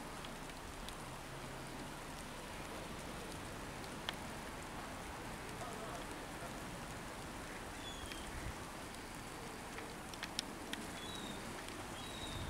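Steady rain falling, with a few isolated sharp ticks.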